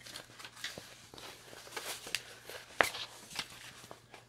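Rustling and crinkling of a diamond painting canvas and its printed cover sheet being handled and peeled back: a string of irregular soft crackles, with a sharper crackle a little under three seconds in.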